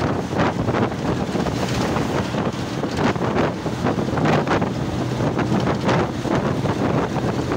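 Wind buffeting the microphone at the window of a moving bus, in uneven gusts, over a steady low hum of the bus and the road at speed.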